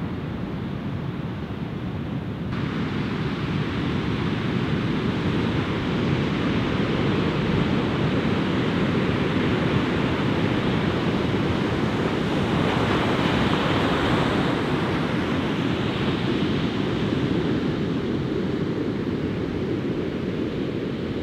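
Ocean surf washing onto a beach, with wind buffeting the microphone. The rushing gets suddenly brighter about two and a half seconds in, and a wave swells up about two thirds of the way through.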